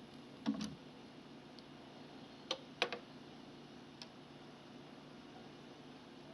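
Dual 601 turntable's mechanism clicking: a click with a low thump about half a second in, two sharp clicks a moment apart about two and a half seconds in, and a faint click near four seconds, over a faint steady hum.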